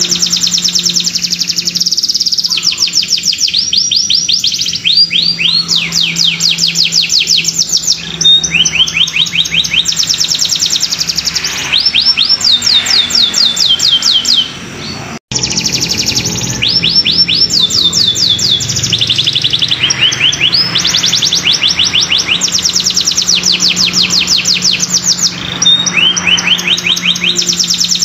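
Domestic canary singing in full, continuous song: rolls of rapid, evenly repeated notes, one trill running straight into the next, with a brief break about halfway through.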